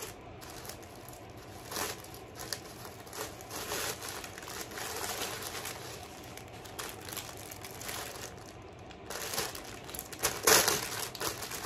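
Plastic packaging crinkling and rustling in irregular bursts as a clothing item is unwrapped from its clear plastic bag, loudest near the end.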